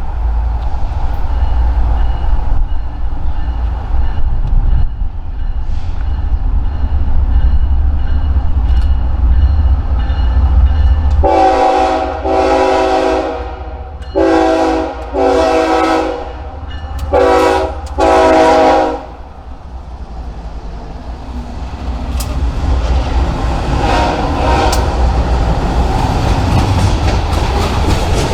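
Diesel locomotive rumbling, then its air horn sounds a run of about six blasts of uneven length, each a chord of several pitches. After the horn, the rumble and clickety-clack of the passing train build up again.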